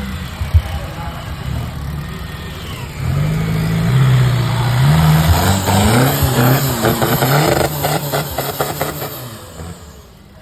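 Off-road 4x4's engine revving hard from about three seconds in, its pitch rising and falling several times, then fading away near the end.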